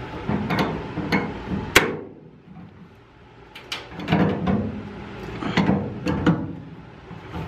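Tongue-and-groove pliers working the flared sheet-steel lip of a 2004 Ford F-150's bed rail to bend it back down: several sharp metallic clicks and knocks at irregular intervals, with a quieter gap a couple of seconds in.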